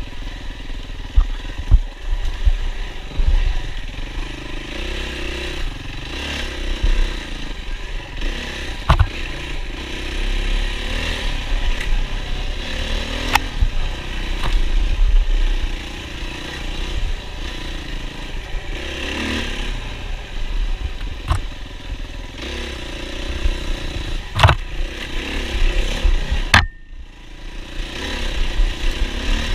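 Yamaha WR450F four-stroke single-cylinder dirt-bike engine revving up and down again and again under throttle, with sharp knocks and rattles from the bike. The engine note drops off briefly near the end.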